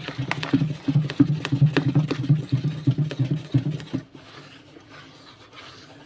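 Wooden paddle stirring hot soapy water in a plastic bowl, knocking and scraping against the bowl's sides with quick repeated clicks and sloshing; the stirring goes quieter about four seconds in.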